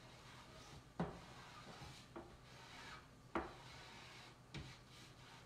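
Small plastic squeegee scraping and rubbing chalk paste over a silkscreen stencil on a metal tray, quiet, broken by a few sharp knocks, the two loudest about a second in and about three and a half seconds in.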